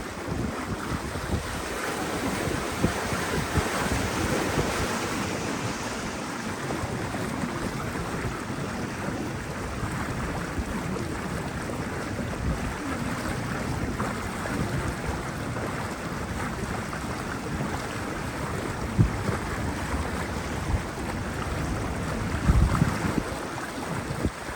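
Steady rush of a small open canal tour boat under way, its motor and the water mixed with wind buffeting the microphone, with a few brief low knocks near the end.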